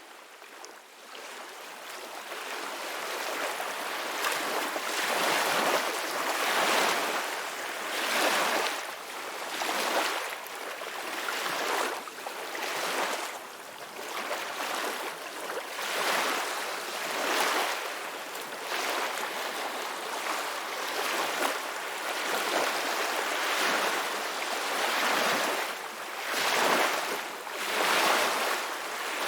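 Ocean surf washing on a shore, a steady rushing noise that swells and ebbs every second or two. It fades in from silence over the first few seconds.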